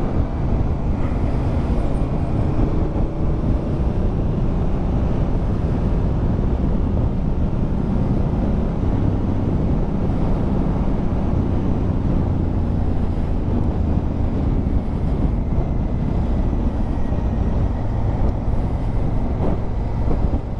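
Honda Africa Twin CRF1000L parallel-twin engine running steadily under way, mixed with heavy wind and road noise; the engine note shifts a little with the throttle.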